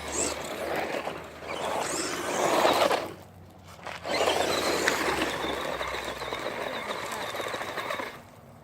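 Small electric RC car driving over rough ground: rough tyre-and-dirt noise with a faint high motor whine. The noise dips into a brief lull about three seconds in, then picks up again.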